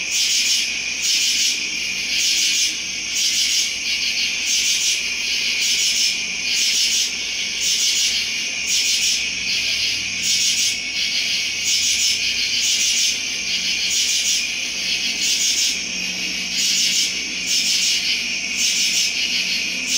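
Motorized display turntable running, a steady high-pitched rasping that pulses about twice a second.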